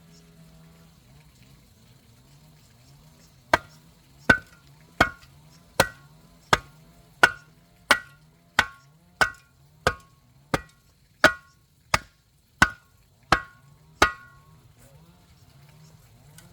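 Sixteen sharp, evenly spaced knocks of a hand tool striking something hard, about one every 0.7 seconds, each with a brief ring; they start about three and a half seconds in and stop a couple of seconds before the end.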